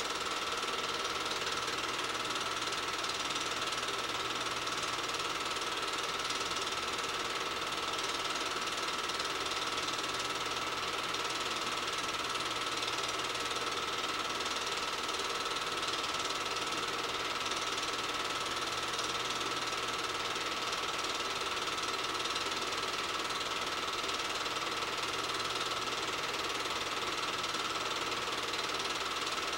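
8mm film projector running: a steady, fast mechanical clatter from the film-advance mechanism, with a thin steady whine over it.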